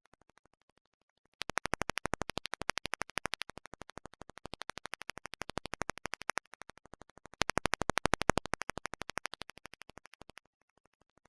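Rapid, perfectly regular clicking, about ten clicks a second, that swells up, dips, swells again and fades. It is a recording fault: the soundtrack failed to record.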